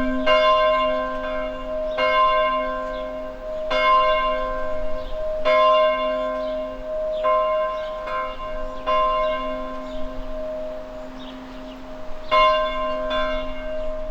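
A large bell tolling, struck roughly every second and three-quarters, each strike leaving a long ringing hum that overlaps the next. The strikes weaken towards the middle, then a strong strike comes near the end.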